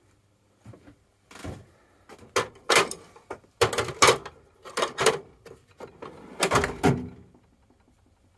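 An irregular series of knocks and clunks from hard objects being handled, about a dozen over some five seconds, each short with a brief ring; the loudest come near the middle and just before the end.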